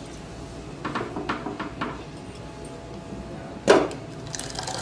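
Light clinks of stainless-steel kitchen vessels being handled, then one louder knock about three and a half seconds in.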